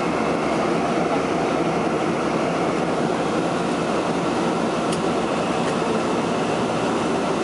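Boeing 777-300 heard from inside the cabin on its takeoff roll: the engines at takeoff thrust with a steady, dense rumble from the wheels on the runway.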